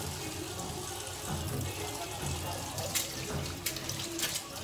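Kitchen tap running and splashing onto a metal oven tray held under it in a stainless steel sink, with a few light knocks near the end as the tray is handled and scrubbed with a cloth.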